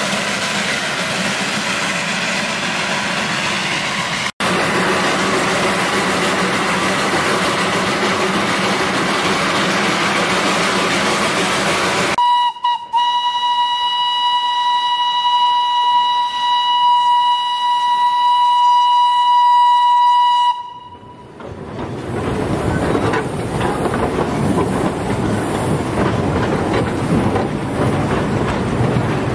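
Darjeeling Himalayan Railway steam locomotive running with a steady hissing, rattling rush. About twelve seconds in its steam whistle sounds two quick toots and then one long steady blast of about eight seconds, after which the running noise comes back.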